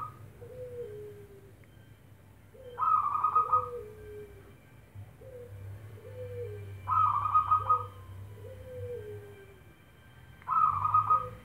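Zebra dove (perkutut) singing three song phrases about four seconds apart. Each opens with a loud, rapid run of notes and trails off into lower, falling coos.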